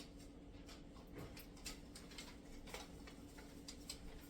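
Faint, irregular light clicks and taps, about one every half second, over a low steady hum.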